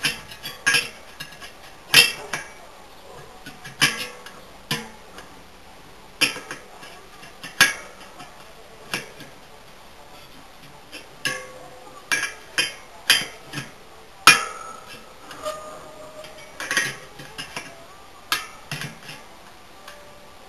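Irregular light metallic clicks and clinks, spread out through the whole stretch, some with a short ring, from a bicycle wheel being trued by hand on a stand: a spoke wrench working the spoke nipples and the spokes and rim knocking against the metal.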